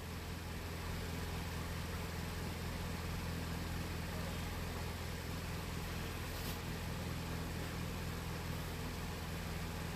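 Steady low mechanical hum over a light hiss, even throughout, with one faint tick about six and a half seconds in.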